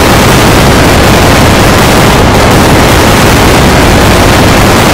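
Steady, very loud distorted noise clipped to full scale, the logo's audio blown out by the effects processing, with no tones or rhythm to make out.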